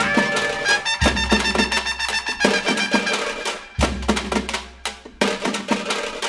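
Background music with percussion: a steady run of drum and wood-block-like hits over pitched notes, with deep bass hits about a second in and again near four seconds.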